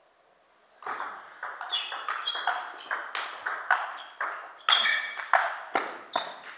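A table tennis rally on a Donic table: the celluloid ball clicks off the rackets and bounces on the tabletop in quick alternation, about three or four knocks a second. It starts about a second in, after a near-quiet moment.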